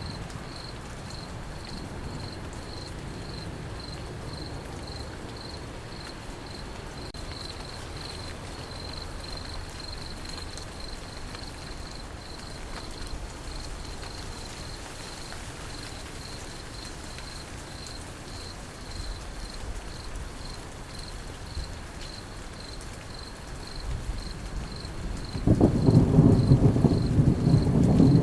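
Crickets chirping in a steady high pulse, about three chirps a second, over falling rain. Near the end a loud, low rumble of thunder rolls in.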